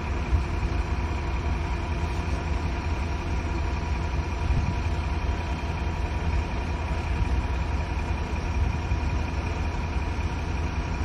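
A moored vessel's engines idling: a steady low drone with a faint constant whine above it.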